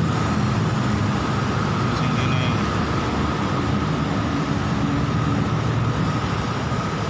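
A steady low motor-like hum with a thin, steady high tone above it, unchanging throughout.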